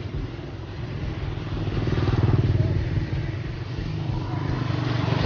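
Motorcycle engine running steadily, getting louder about two seconds in.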